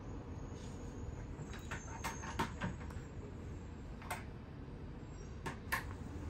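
A scattered series of light clicks and taps from the parts and screws being handled while a front fender is fitted to an electric bike. A cluster comes about two seconds in, one more around four seconds, and a pair near the end, over a low steady hum.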